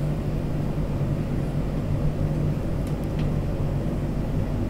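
Steady low hum, with a couple of faint ticks about three seconds in.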